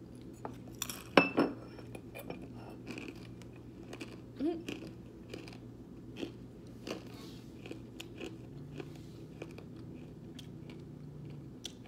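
A person chewing a crunchy snack close to the microphone: scattered crunches and mouth clicks, the loudest about a second in.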